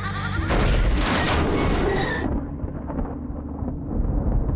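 Title-sequence sound effect: about half a second in, the music gives way to a loud booming whoosh. Its upper part cuts off sharply after about two seconds, and a low rumble carries on and swells again near the end.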